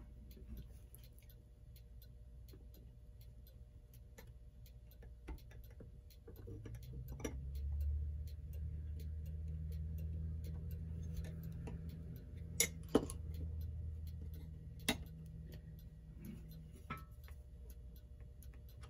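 Faint, steady ticking of a mechanical clock, with a few sharper clicks from small metal clock parts being handled, mostly in the latter half. A low hum swells for several seconds in the middle.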